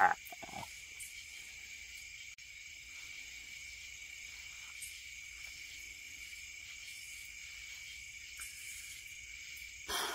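Night insects chirring steadily in a high, even drone. A brief burst of a man's voice comes at the very start.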